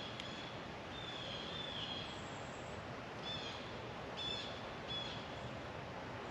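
Blue jays calling: a series of about six calls, one of them longer about a second in, the rest short.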